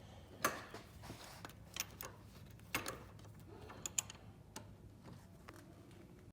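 A handful of light, scattered clicks and knocks, about six over several seconds, from the home-built Kydex press being handled, over a faint steady low hum.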